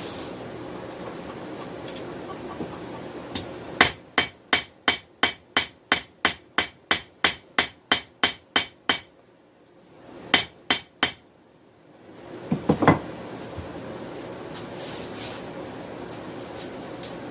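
Hammer striking hot 416 stainless steel on an anvil while forging a knife blade: a run of about fifteen strikes at about three a second, a short pause, then three more strikes, followed by a brief clatter.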